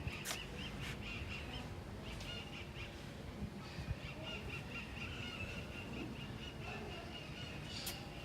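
A bird calling: a high, thin wavering chirp, with short warbles at first and then a longer held trill. Two sharp clicks, one just after the start and one near the end.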